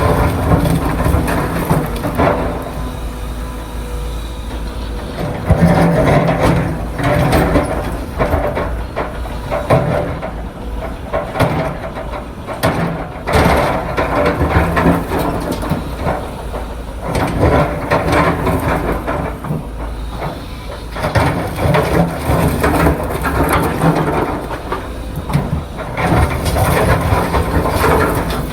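Heavy diesel machinery running, most likely the large excavator's engine, rising and falling in surges every few seconds with scattered knocks and clanks.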